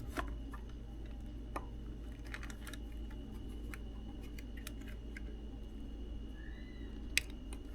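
Scattered light clicks and taps as a small electrolytic capacitor is handled and its leads fitted into a component tester's socket, over a steady low hum.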